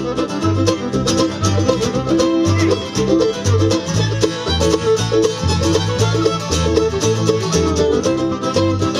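Bluegrass band playing an instrumental break with no singing: banjo, mandolin and acoustic guitar picking, with fiddle. Low bass notes change about twice a second underneath.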